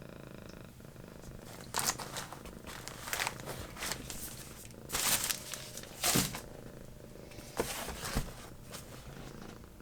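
Packaging being handled, rustling and crinkling in irregular bursts, the loudest about 5 and 6 seconds in, over a cat purring steadily.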